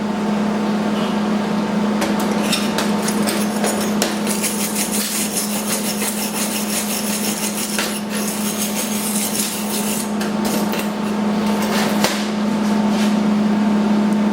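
Hand cleanup of a fresh aluminum MIG weld: rapid scratching and tapping of a metal tool on the metal, busiest in the middle stretch, over a steady low hum.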